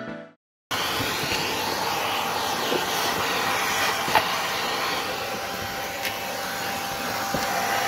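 Vacuum cleaner with a brush nozzle running steadily as it is worked over a surface, with a few faint clicks. It comes in abruptly under a second in.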